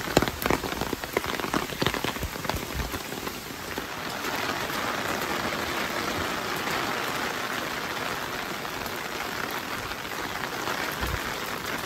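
Steady rain falling, with sharp close ticks of drops during the first three seconds, then an even hiss.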